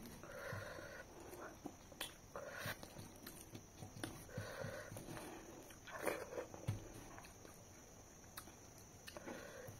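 Faint eating sounds: chewing and mouth noises, with soft squelches of fingers mixing rice into mutton gravy and a few scattered small clicks.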